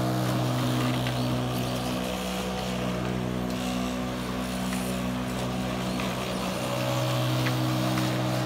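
Walk-behind lawn mower engine running steadily, a constant engine hum that eases slightly in the middle before strengthening again.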